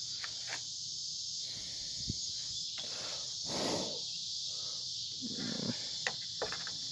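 Steady high-pitched chirring of crickets or other insects, with a few light clicks and a brief rustle about three and a half seconds in.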